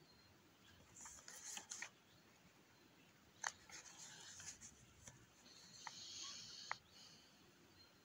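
Faint rustling close to the microphone, in three short bursts, with a few sharp clicks; the sharpest click comes about three and a half seconds in.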